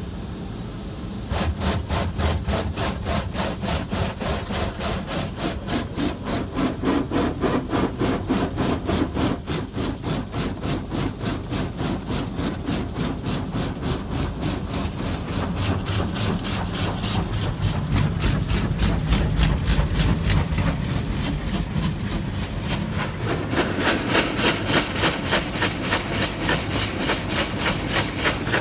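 AUTEC EV-2 automatic car wash spraying water onto the car, heard from inside the cabin: a rapid, even pulsing several times a second. It gets louder about a second in and brighter and hissier near the end.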